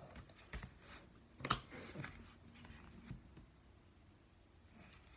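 Faint handling noises from a cardboard CD album box and its paper contents being taken out: a few light taps and short rustles, the loudest about a second and a half in, then near quiet.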